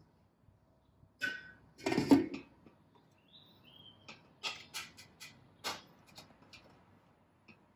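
A series of light knocks and clicks of things being handled, with one louder clatter about two seconds in and a quicker run of lighter clicks later on.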